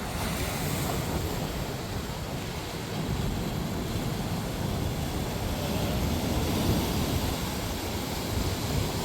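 Ocean surf making a steady rushing noise, with wind rumbling on the microphone.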